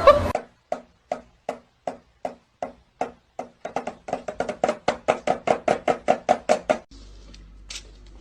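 A run of sharp, pitched knocks, slow at first and then quickening to about three or four a second, stopping abruptly about seven seconds in.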